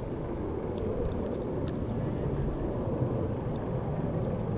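Wind buffeting the microphone: a steady low rumble, with a few faint ticks.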